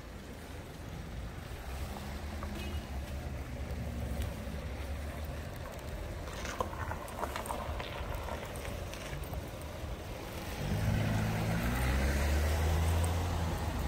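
A motor engine running at low revs, growing louder over the last few seconds as it comes closer. A few light clicks and rustles come in the middle.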